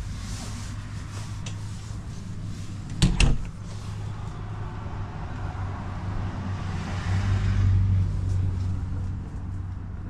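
A steady low hum, with a sharp knock about three seconds in and a louder rumbling swell around seven to eight seconds.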